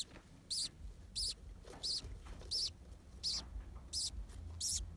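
Newly hatched budgerigar chick peeping, short high cheeps repeated very evenly about every two-thirds of a second, the begging call of a chick being fed.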